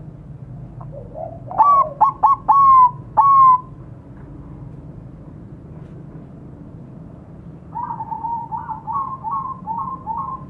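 Zebra dove (perkutut) singing. About five loud, clipped coos come near the start, each dropping slightly in pitch, and a softer, quicker run of about six coos follows near the end.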